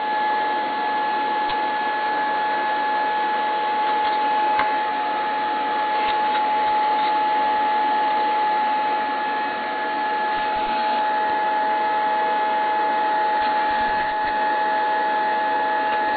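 Chrysler P56038629AH car radio putting out a steady whistling tone over a hiss, with a few faint clicks.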